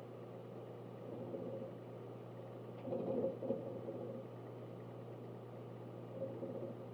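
Synology DS1821+ eight-bay NAS running, with a steady low hum. Short bursts of hard-drive seek chatter come about a second in, around three seconds in (the loudest), and again near the end.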